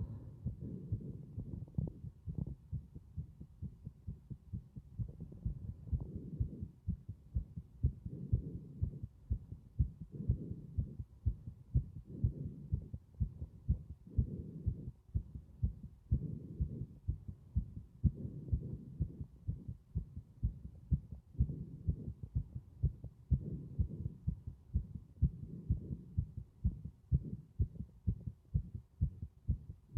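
Heart sounds, a steady run of dull, low beats, with breathing sounds rising and falling over them about every two seconds.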